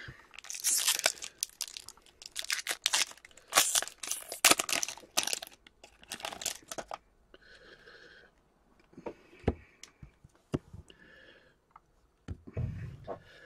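Foil wrapper of a trading card pack torn open and crinkled by hand, a rapid run of sharp tearing rustles for the first several seconds, then sparser, fainter handling of the pack and cards.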